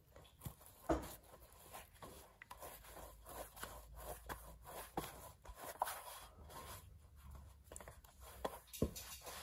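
Hands kneading and rolling dough on a floured metal tray: an irregular run of soft pats, rubs and light taps, with a sharper knock about a second in and another near the end.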